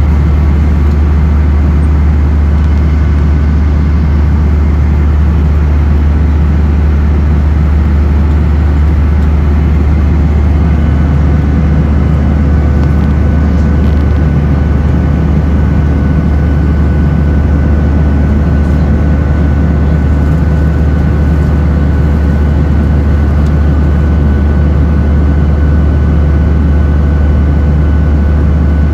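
Cabin noise of a Boeing 737-800 in flight: a steady, deep drone of airflow and its CFM56 jet engines, with a faint steady whine running through it.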